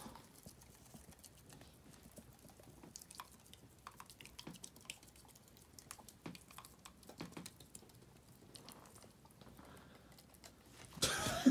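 Faint, scattered soft clicks and rustles of a golden retriever puppy mouthing and nibbling on a person's hand.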